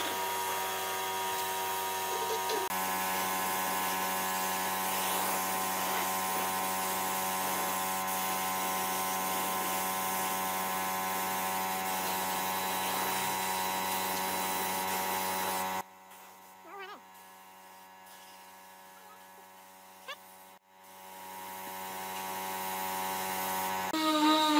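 Compressed-air spray gun spraying wood finish: a steady hiss over an even electric hum. About sixteen seconds in the sound drops abruptly to a much quieter steady hum.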